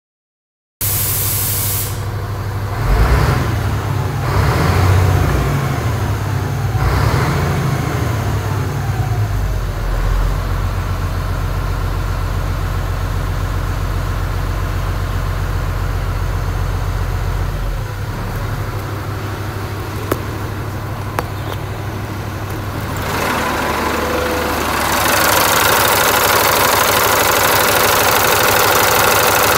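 Caterpillar 3306B direct-injection inline-six diesel running, its pitch rising and falling several times in the first ten seconds before it settles into a steady idle. Heard first from the cab, then louder and brighter at the open engine bay from about three quarters of the way through.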